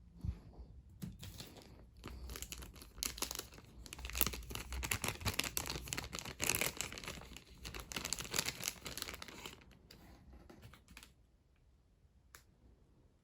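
Crinkling, rustling handling noise made of dense rapid crackles. It builds from about two seconds in, dies away near ten seconds, and is followed by a single click near the end.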